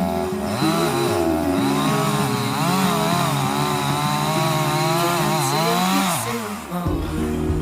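Chainsaw engine revving up and down, its pitch rising and falling repeatedly, until it stops about six and a half seconds in. Steady background music plays underneath.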